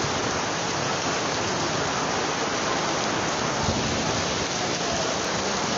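Heavy monsoon rain pouring down, a steady even hiss.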